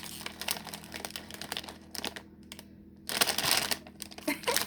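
Plastic snack bag of banana chips crinkling as it is handled, with scattered small crackles and a louder burst of crinkling about three seconds in.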